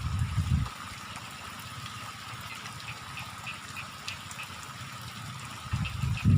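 Steady hiss of light rain, with a run of short, quickly repeated animal calls over it. Low rumbles come in the first second and again near the end.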